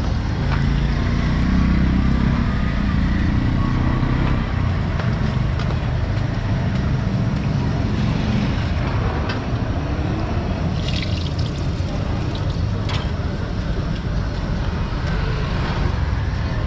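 Busy street ambience: a steady rumble of traffic with indistinct voices, and a few sharp clicks about the middle.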